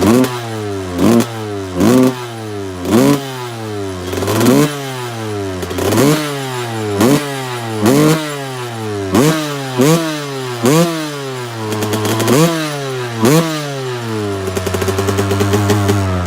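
2002 Honda CR250R's single-cylinder two-stroke engine, through a custom shorty silencer cut from the stock one, being revved in short throttle blips about once a second, each snapping up and falling back to idle. Near the end it settles into a steadier, slowly rising run.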